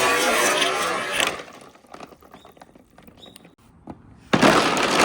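Many glass marbles rolling and clattering down a wooden marble run. The dense rattle dies away about a second in, leaving a few scattered clicks, then a sudden loud rush of clattering marbles comes in near the end.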